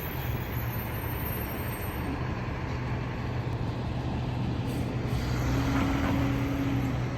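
Garbage truck's engine running steadily with a constant low hum. A second, higher steady tone joins in for about a second and a half near the end.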